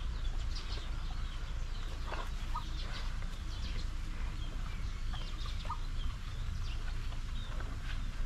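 Chickens clucking and birds chirping in short, scattered calls, over a steady low rumble.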